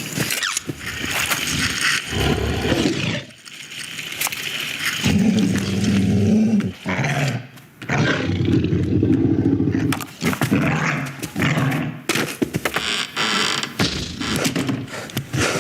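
Animal growling and roaring sound effects in a film soundtrack: several rough growls of a second or two each, with short breaks between them.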